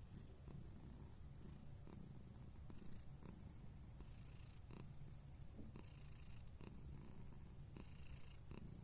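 Scottish Fold cat purring steadily, a soft low rumble, with a few faint clicks here and there.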